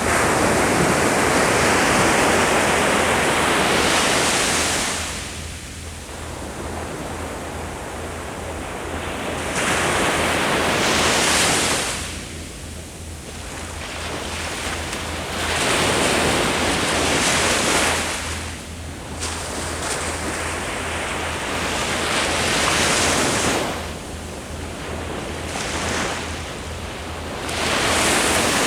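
Ocean waves breaking on a beach, each wave surging in with a rush of surf then draining back, about five waves in the stretch, with light wind on the microphone.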